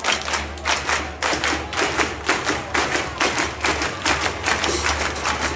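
A large crowd clapping in unison to a steady beat, about three claps a second.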